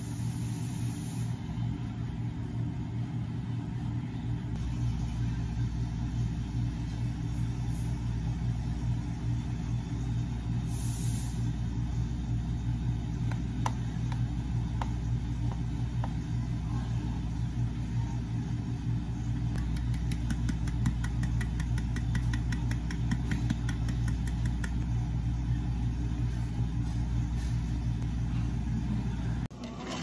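Motor of a cafe drink-making machine running steadily with a low hum, cutting off abruptly just before the end.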